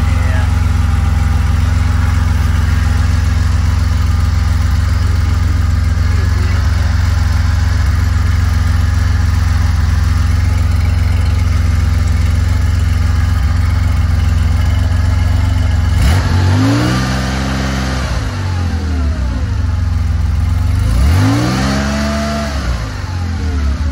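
Air-cooled Porsche 911 flat-six running steadily at idle, then revved up and let fall back twice in the last third.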